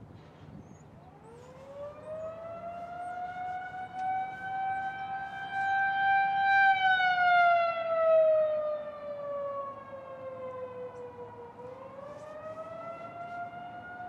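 Federal Signal 2001-130 rotating outdoor warning siren winding up about a second in and sounding the wavering Attack signal. Its pitch climbs, holds, slides down and climbs again near the end. The rotating head makes it swell loudest midway and fade as it turns away.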